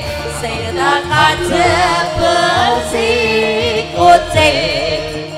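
Javanese gamelan (karawitan) music with a female sinden singing a wavering, ornamented vocal line over the sustained metallic tones of the ensemble.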